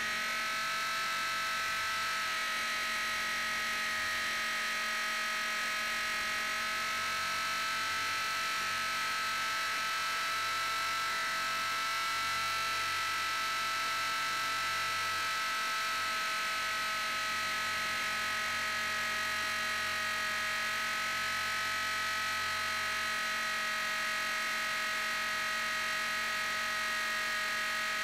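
Blade 450 X electric RC helicopter's brushless motor and main gear whining steadily in flight, heard from a camera mounted on the helicopter, with a high buzz holding an even pitch that dips and rises only slightly.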